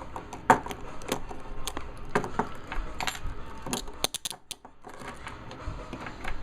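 Steel Blue Line handcuffs clicking and rattling as they are handled and a commercial shim is worked into the cuff. A series of sharp metal clicks, with a louder one about half a second in and a quick cluster of clicks around four seconds in.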